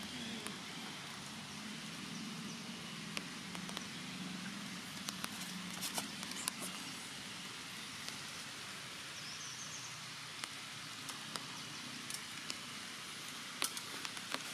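Outdoor forest ambience: a steady hiss with scattered light ticks, under a low hum that fades out about six seconds in. A brief high chirp comes about nine seconds in.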